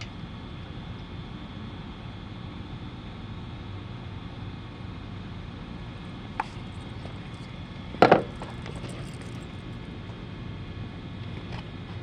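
Steady low background noise, broken by a small click and, about two-thirds of the way through, a loud sharp double knock, like something hard being struck or dropped.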